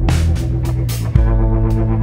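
Electronic background music with heavy synthesizer bass and a steady beat; the bass note changes about a second in.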